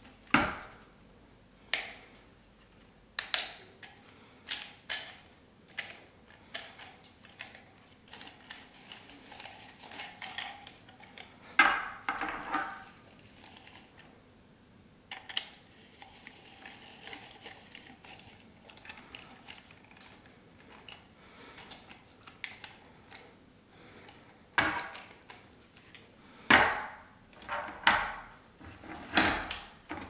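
Irregular plastic clicks, knocks and light rattling of a 3D-printed toy planetary concrete mixer being handled, its drum tilted and its crank turning the plastic gears. The sharpest knocks come about half a second in, near the middle, and several times near the end.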